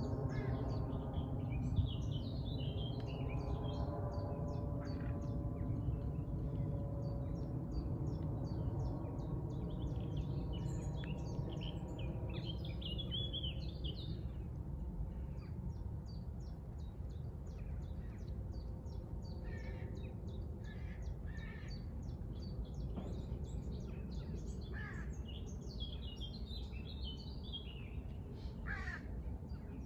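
Birds chirping and calling, with a few harsher calls near the end, over a steady low background noise.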